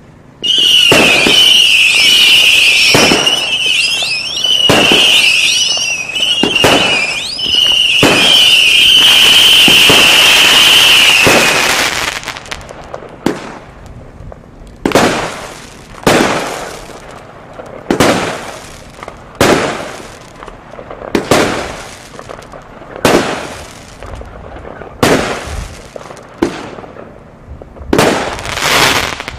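25 mm consumer firework cake firing. For the first twelve seconds a loud, wavering high whistle runs over rapid shots. After that, single shots come about every one and a half seconds, each a sharp bang that trails off.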